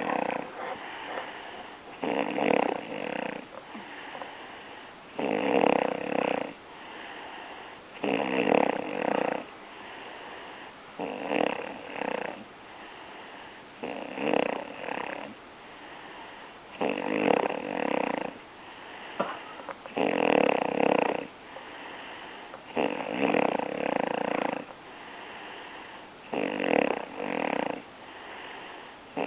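Snoring: a loud snore about every three seconds, around ten in all, with a fainter breath between each.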